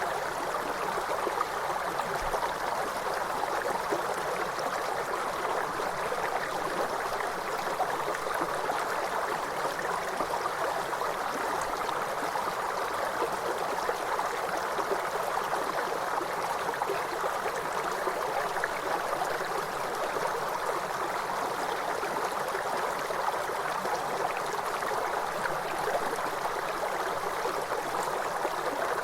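A river running: a steady rush of flowing water.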